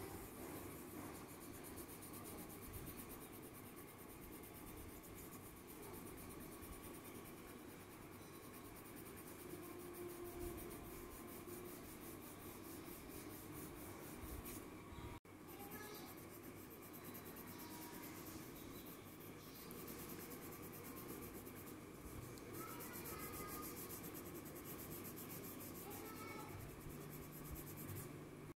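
Coloured pencil rubbing on paper in faint, continuous shading strokes, with a brief break in the sound about halfway through.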